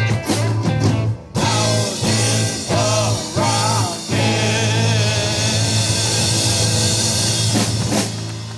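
Live rock band: a few short sung phrases over bass and drums. About four seconds in, the band holds a long closing chord under a steady bass note, with cymbal crashes near the end.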